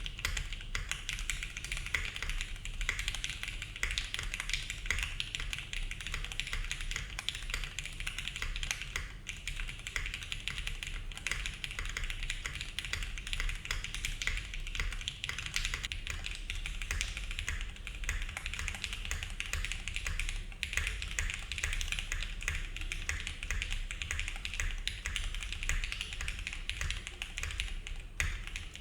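Continuous fast typing on a Neo70 mechanical keyboard fitted with MX Black linear switches, in its O-ring mount: a dense, steady stream of keystroke clacks.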